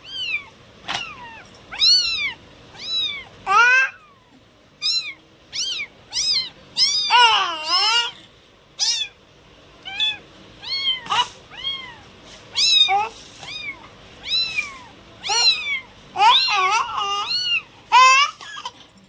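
Kittens meowing over and over: short, high meows that rise and fall in pitch, one or two a second. Several calls overlap around the middle and again near the end.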